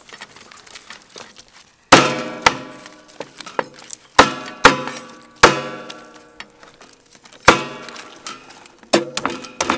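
Cleavers chopping lemongrass stalks on a round wooden chopping block: about eight sharp, uneven chops starting about two seconds in, each followed by a short ring.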